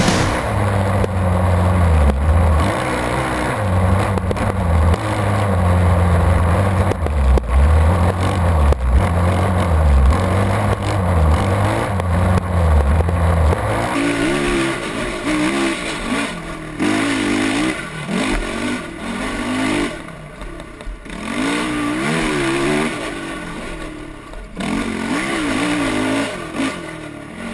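Kawasaki KFX 450R quad's single-cylinder four-stroke engine running on the trail. In the second half it revs up and down over and over, the pitch rising and falling with the throttle, and it drops off briefly a couple of times.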